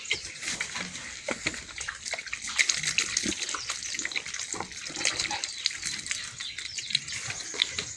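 Water poured in a thin stream from a plastic jerrycan, splashing over a man's hands as he washes them and spattering onto the ground: a steady trickle with irregular little splashes.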